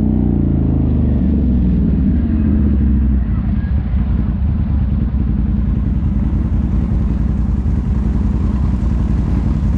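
ATV engine slowing, its pitch falling over the first three seconds, then running on steadily at low speed.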